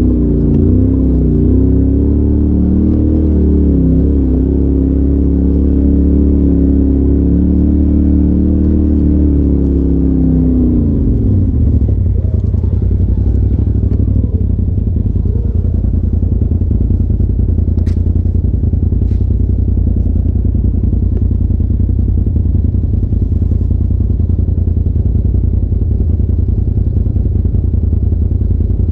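Polaris RZR side-by-side engine heard from inside the cab, running steadily while driving the trail. About eleven seconds in it drops to a low, rough idle, with two faint clicks later on.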